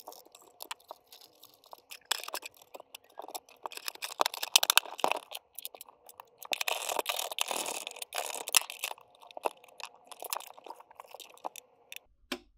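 Rapid, irregular clicks, knocks, scrapes and rustling of the Wanbo X5 projector's plastic housing and internal parts being handled and fitted back together, with a longer stretch of rustling about halfway through.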